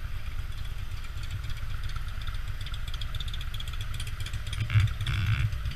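Touring motorcycle's V-twin engine running at a low, steady idle-speed rumble as the bike rolls slowly, with a brief louder burst about five seconds in.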